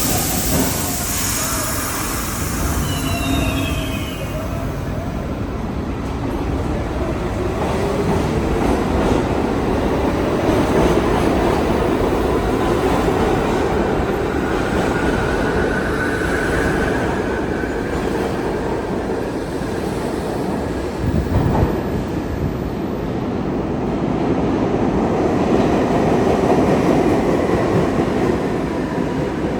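R62A subway train running on the rails, a steady rumble of wheels and car body with a faint wheel squeal about halfway through and a single short clunk about two-thirds of the way in.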